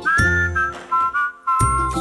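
Background music: an upbeat children's tune with a whistled melody over a steady beat.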